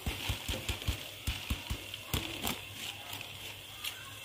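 Dry lentils (yellow moong, red masoor and a little urad dal) tipped from a plastic sieve into a hot aluminium pot of fried masala, pattering and crackling as they land, with a string of soft low knocks over the first two and a half seconds and a faint steady sizzle beneath.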